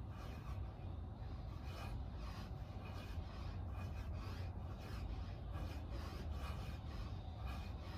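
Rhythmic breathing of a man doing decline push-ups, a breath about every three-quarters of a second, over a steady low rumble.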